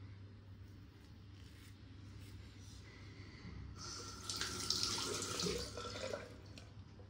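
Bathroom tap running into the sink for about two and a half seconds, starting about four seconds in, as water is run between razor strokes during a wet shave.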